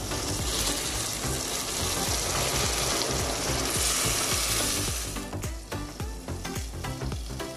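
Water being poured into a hot pot of sautéed mackerel, onion and tomato, hissing and sizzling as it hits the hot oil. The hiss dies away about five seconds in.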